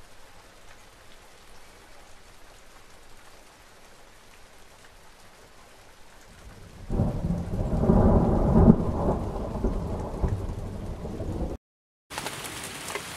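Thunderstorm: rain falling, then about seven seconds in a thunderclap that rolls on for about four seconds and fades. The sound cuts out for a moment, then a steady hiss of rain comes back.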